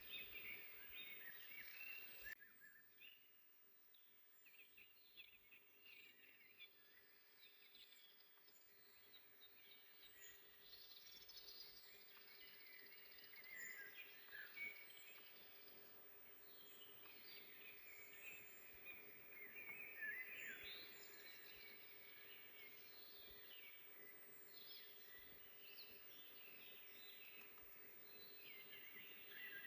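Faint forest birdsong: several small birds singing and chirping in overlapping phrases, over a steady faint low hum. The background hiss drops suddenly about two seconds in.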